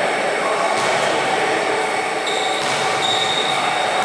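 Basketball sneakers squeaking twice on a gym court, briefly and high-pitched, about halfway through and near the end, over a steady rushing background noise in the reverberant hall.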